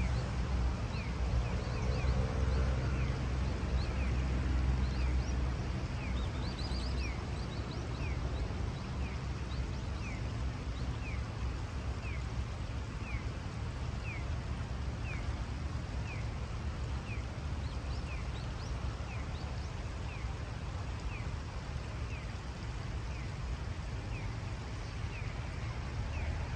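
Shallow river running over a stony riffle, with a steady low rumble under it, heavier in the first few seconds. A small bird repeats a short, high, falling call about once a second.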